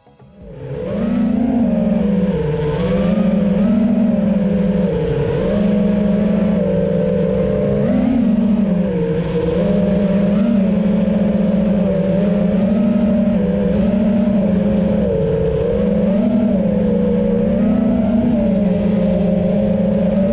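A 5-inch FPV quadcopter's brushless motors and propellers whining, the pitch rising and dipping with each throttle change, picked up by the camera on the quad. It comes in loud about a second in.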